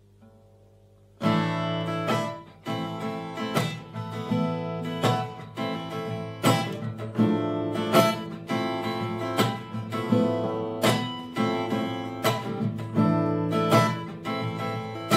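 Takamine acoustic guitar playing a chord-based instrumental intro, starting about a second in: plucked and strummed chords with a steady accent about three times every two seconds.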